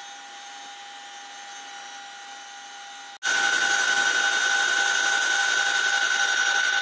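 CH-47 Chinook's twin turboshaft engines and rotors running, heard from inside the helicopter cabin as a steady high whine over a rushing noise. About three seconds in it cuts to a much louder whine.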